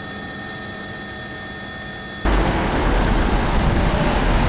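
A steady hiss with faint thin humming tones, the noise floor of a recording. About two seconds in it cuts suddenly to louder street noise with a deep rumble, as cars drive off.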